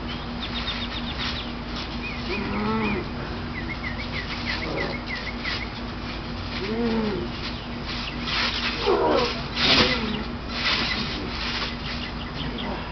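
Two people wrestling on a backyard trampoline: a few drawn-out vocal calls that rise and fall in pitch, and a cluster of thuds as bodies hit the mat, loudest about two-thirds of the way through. Small birds chirp in the background.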